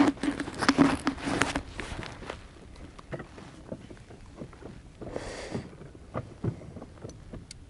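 Handling noise in a small fishing boat: scattered light knocks and rubbing over wind and rippling water, with a short rush of noise about five seconds in.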